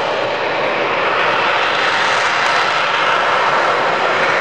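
Rolls-Royce Pegasus vectored-thrust turbofan of an AV-8B Harrier II running in the hover, a loud, steady jet noise.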